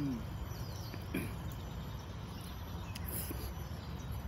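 Rural outdoor ambience: a steady low background rush with faint bird chirps and insects calling. A brief low falling sound comes at the start and another about a second in.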